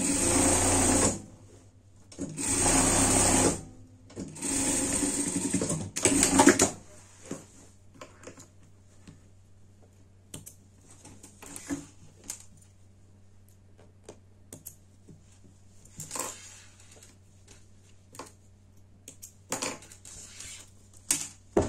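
Industrial sewing machine stitching through thick fleece and foam layers in three short runs within the first seven seconds, the longest about two seconds. After that come only scattered soft clicks and rustles of fabric being handled.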